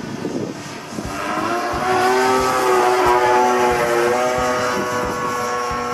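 26cc single-cylinder two-stroke gas engine of a Goldwing Extra 260 RC aerobatic airplane flying past, growing louder from about a second in and loudest around the middle. Its pitch drops slightly as it goes by.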